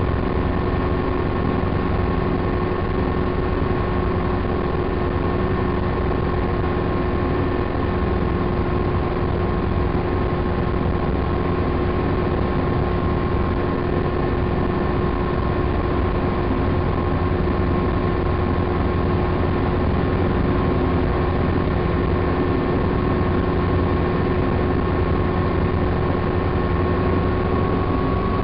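Helicopter engine and rotor noise heard from inside the cabin in flight: a steady drone with a constant whine held over it.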